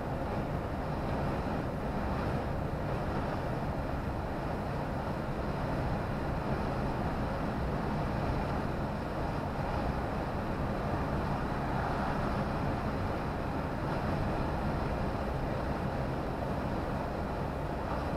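Steady engine hum and tyre-on-road noise of a vehicle driving along a road.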